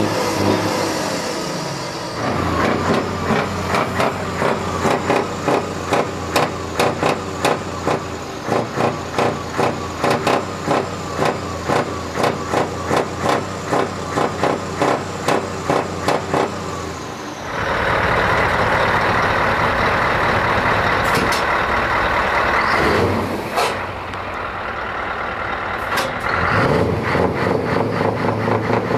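Heavy truck diesel engines with open exhaust pipes being revved in quick repeated throttle blips, about two a second. Partway through, this changes to a steady loud run of several seconds before the blipping starts again.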